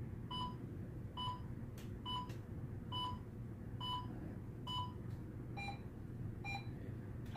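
Pulse oximeter beeping once with each heartbeat, about 68 beats a minute. About two thirds of the way through, the beep drops to a lower pitch. On a pulse oximeter this marks a falling oxygen saturation reading, and the patient's saturation is reported as sitting a little low.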